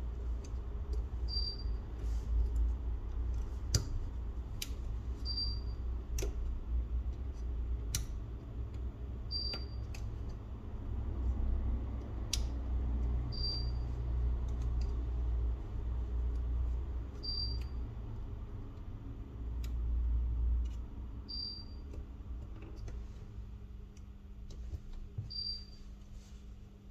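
Scattered small clicks and taps of hand tools and phone parts being handled during smartphone repair, over a low rumble and a steady hum. A short high chirp repeats about every four seconds.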